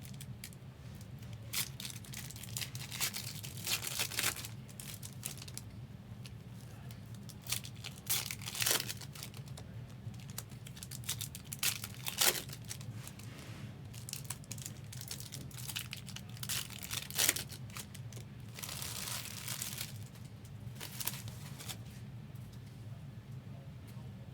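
Foil trading-card pack wrappers being torn open and crinkled: irregular short rips and rustles, over a steady low hum.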